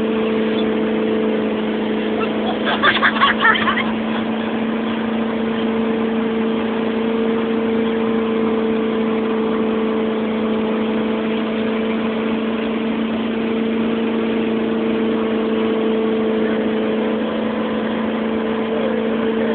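Motorboat engine running steadily at speed while towing a tube rider: a constant even drone over a continuous rushing noise. A brief shout comes about three seconds in.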